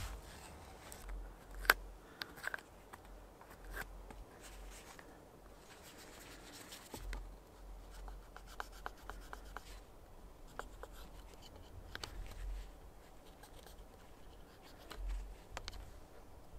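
Hand auger boring into green wood, then a knife blade paring inside the bored hole: quiet scraping and rubbing of steel on wood with scattered sharp clicks, the sharpest about two seconds in, and a quick run of small ticks about halfway through.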